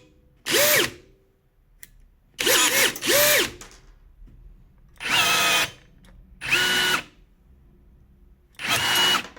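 Cordless rivet gun's electric motor whirring in short bursts, about six of them, each roughly half a second long, while setting 5 by 20 mm steel rivets.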